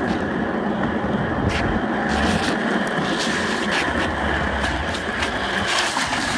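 Office chair casters rolling fast over rough asphalt: a steady grinding rumble with a few sharp clicks.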